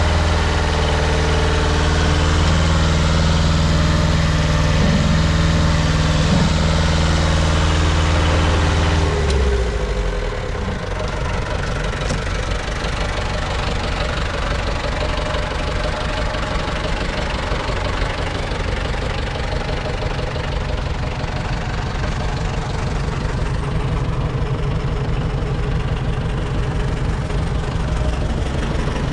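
New Holland L555 skid steer's engine running steadily at raised speed, then dropping sharply to a lower idle about nine seconds in and idling on steadily.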